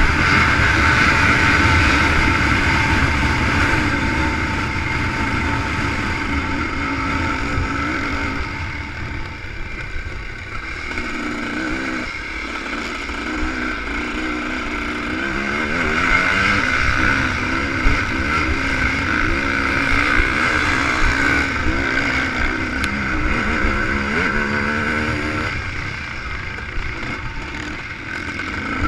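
ČZ two-stroke motocross motorcycle engine at race pace, heard from on the bike. Its pitch rises and falls again and again as the throttle opens and closes and the gears change, over a steady low buffeting rumble.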